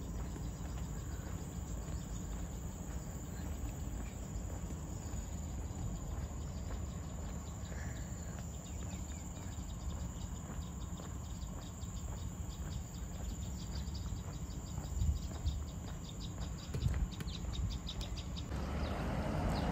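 Insects calling in tropical greenery: a steady high-pitched drone, with rapid even chirping pulses from about eight seconds in until near the end, over a low steady rumble.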